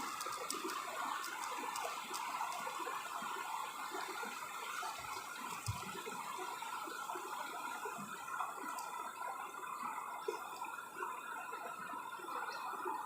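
Steady running river water, with a few faint clicks in the first few seconds.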